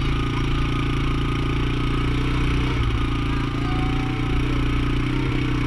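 Small vehicle engine running steadily at an even speed while towing a trailer-mounted chair.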